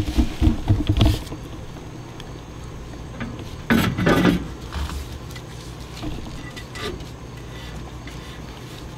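Trailer hub and brake drum being pushed and wiggled onto the axle spindle by hand: a cluster of metal knocks in the first second, a louder scrape and clunk about four seconds in, then a few faint clicks. The brand-new spring-loaded grease seal makes it a tight fit, so the drum has to be worked past it.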